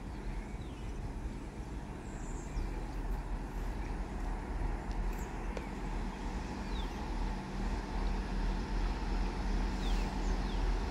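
Engine of a yellow rail maintenance railcar approaching along the track, a steady low rumble that grows gradually louder. A few faint bird chirps.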